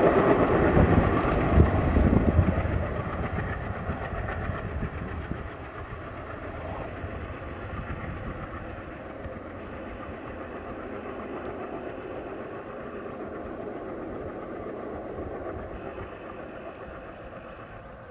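Passenger express train's coaches rolling away on the rails, loud for the first couple of seconds and then fading to a steady distant rumble as the train recedes.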